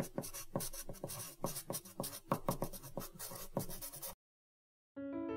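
Pencil scratching on paper in quick repeated strokes, stopping suddenly about four seconds in. After a short silence, piano music begins near the end.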